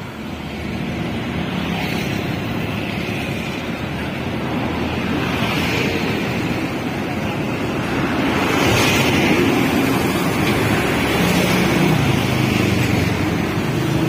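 Steady drone of heavy diesel engines: a Niigata NFB6C asphalt finisher running close by amid passing trucks and road traffic, growing louder about eight seconds in.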